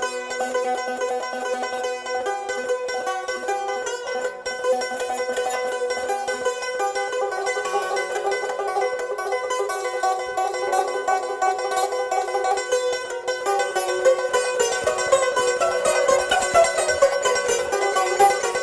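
Azerbaijani tar, a long-necked plucked lute, played solo: a rapid run of plucked, tremolo-like notes in a classical mugham-style melody, growing busier and louder from about 14 seconds in.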